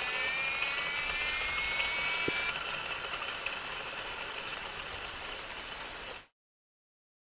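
Cuttronix CM-10S3 single-phase core drill motor spinning a 200 mm diamond core bit with no load after finishing the cut. It makes a steady whine that rises slightly in pitch over the first couple of seconds, with a single click about two seconds in, then fades and cuts off abruptly near the end.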